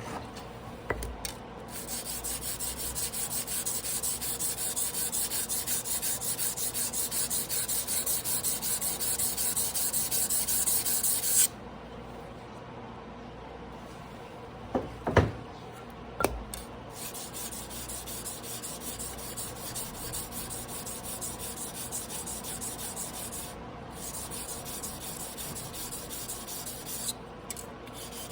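A carbon-steel sashimi knife blade being stroked back and forth on a whetstone in hand sharpening, with a fast, even, rhythmic scraping that grows louder and stops abruptly about eleven seconds in. A few sharp knocks follow, then quieter strokes on the stone resume.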